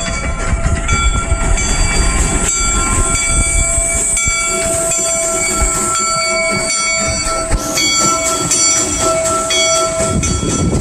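Replica Union Pacific No. 119, a Rogers-built 4-4-0 steam locomotive, running along the track: a steady, loud mechanical and steam noise with high ringing tones laid over it.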